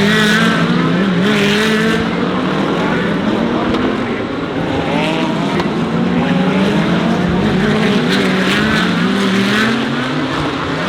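GT3 race car engines running hard at racing speed. Their pitch drops and then climbs again as the cars brake and accelerate.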